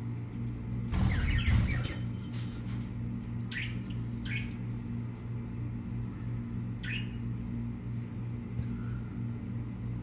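Budgerigars chirping: a few short, downward-sweeping chirps, with a rustling, scraping stretch about a second in. A steady low hum runs underneath.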